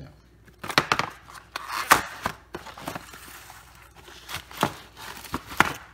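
Cardboard frozen-meal box being opened and handled, with the plastic tray slid out: an irregular series of scrapes, rustles and sharp taps, the loudest about two seconds in.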